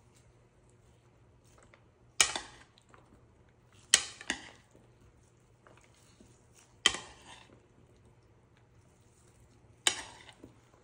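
Metal spoon stirring diced cucumber, red onion and tomatoes in a ceramic bowl, clinking sharply against the bowl four times, the second a quick double clink.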